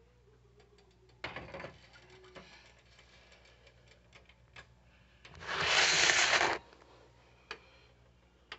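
A phone being picked up and handled: scattered clicks and knocks, a short rustle about a second in, and a loud hiss lasting just over a second about five seconds in.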